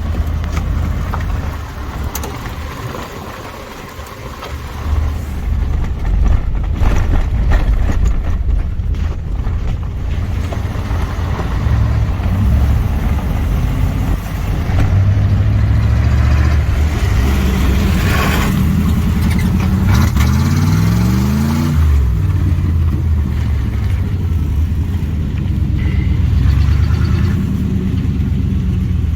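Motor vehicle engine running as it is driven slowly, a steady low drone. About two-thirds of the way through, the engine pitch briefly rises and falls.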